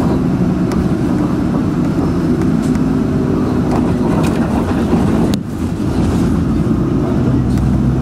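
Interior noise of a moving bus: a steady drone of engine and road noise with a low engine hum, dipping briefly about five and a half seconds in.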